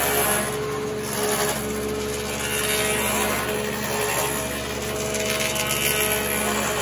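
Copy lathe running: its motors hum steadily while the cutter heads shave wooden axe handle blanks, with a dust extractor running alongside. The cutting noise rises and falls every second or two.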